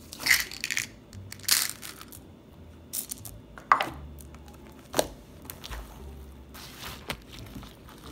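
Small plastic beads tipped onto glitter slime and pressed in by hand: irregular clicks of beads knocking together and sticky crackles of the slime, the sharpest a little past the middle.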